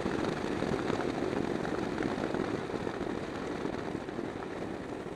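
Suzuki Sixteen scooter under way at road speed: engine running under a steady rush of wind noise on the handlebar-mounted camera, growing a little quieter toward the end.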